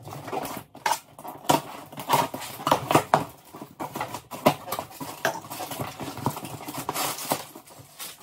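A cardboard shipping box being handled and opened by hand: a busy run of knocks, scrapes and rustles as the box is turned and its flaps are pulled open.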